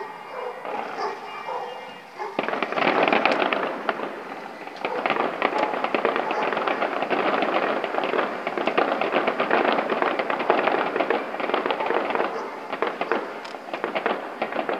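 Fireworks display crackling: a dense run of rapid pops and crackles that starts about two seconds in and goes on without a break.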